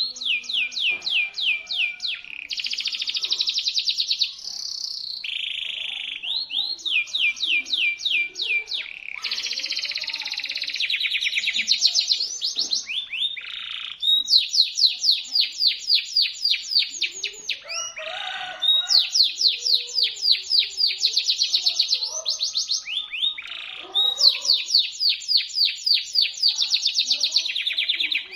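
Domestic canary singing: shrill, sharp phrases of rapidly repeated high notes, each phrase lasting a few seconds, with short buzzy stretches and brief breaks between them.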